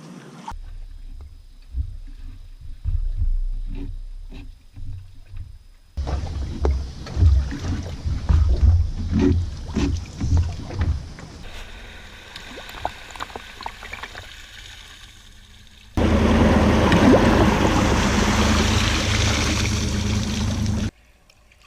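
Water splashing and rushing as picked up by GoPro action-camera microphones, with low rumbling knocks, in several spliced stretches that cut abruptly from one to the next. The loudest is a dense steady rush that starts suddenly about 16 seconds in, lasts about five seconds and cuts off near the end.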